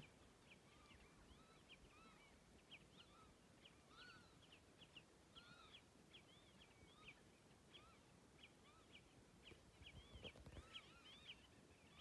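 Faint chorus of birds calling: many short chirps, each rising and falling in pitch, overlapping at several a second.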